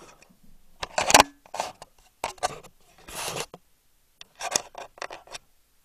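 Camera handling noise: fingers rubbing and scraping against the camera body close to its microphone, in about five irregular bursts with short gaps, the loudest about a second in.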